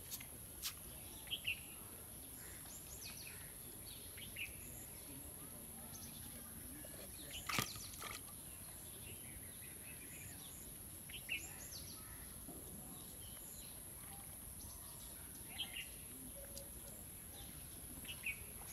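Scattered short bird chirps over a steady background hiss, with one sharp click about seven and a half seconds in.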